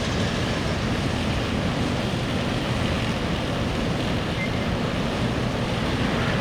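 Steady low rumble of a freight train rolling on, with no distinct wheel clicks, mixed with wind on the microphone.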